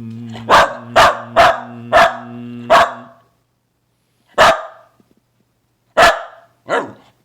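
Dog barking in eight sharp, separate barks: five in quick succession over a steady low hum during the first three seconds, then three more spaced out.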